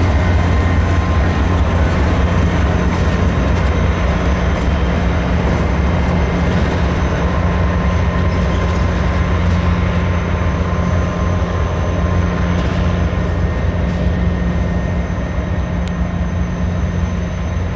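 Diesel locomotives running with a steady low engine hum, slowly getting quieter toward the end.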